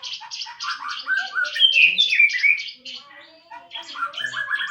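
Caged murai songbird singing continuously: a fast chatter of repeated high notes, with rising runs of clear notes about a second in and again near the end.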